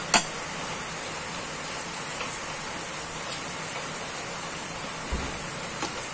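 Pot of tomato chicken stew boiling, a steady bubbling hiss, with a couple of sharp clicks at the very start.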